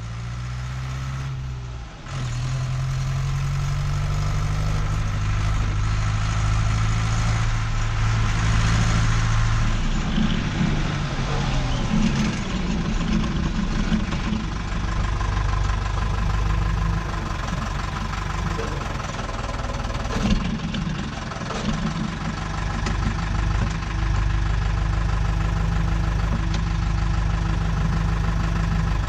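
Deutz-Fahr DX 3.65 tractor's air-cooled Deutz diesel engine running, heard from inside the cab. It gets louder about two seconds in, its pitch shifts up and down for several seconds in the middle, then it runs steadily.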